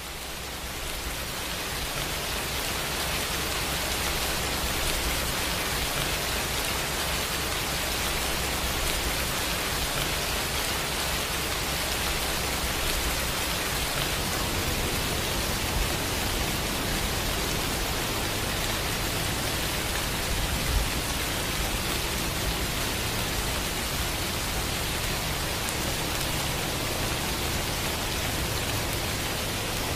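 Steady rain falling, an even hiss with a low rumble underneath, and one brief bump a little past the middle.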